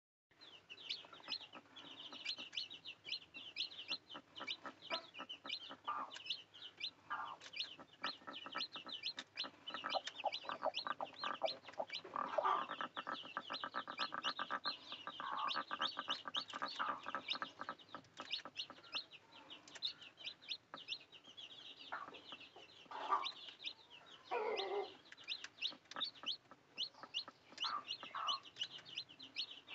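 Chicks peeping rapidly and continuously in short, high notes. Lower clucking calls from an adult chicken come in now and then, loudest about halfway through and again near the end.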